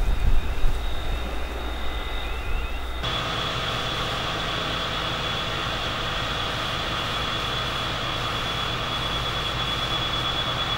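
Gusty wind rumble with a few short chirps. About three seconds in, it gives way to an engine running steadily with a constant high whine over it.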